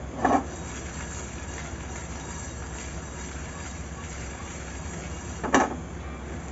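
Whole spices being dry-roasted on a hot tawa: two short clatters on the pan, one right at the start and one near the end, over a steady low rushing hum.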